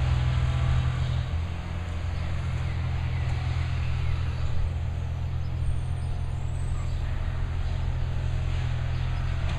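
Low, steady engine drone of heavy work trucks idling and working. About six seconds in, a faint high squeal comes twice, briefly.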